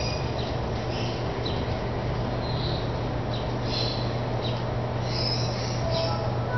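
Corsair Hydro H60 liquid CPU cooler's pump running with a steady low hum and hiss, overlaid by irregular, short high-pitched chirps and squeaks: an unwanted noise coming from the cooler.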